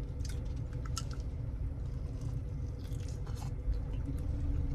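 Close chewing and biting on a fried chicken wing, with scattered crunches, over a steady low hum.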